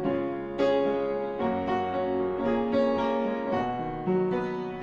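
Upright piano playing a slow instrumental passage: chords struck every second or so, each ringing and fading before the next.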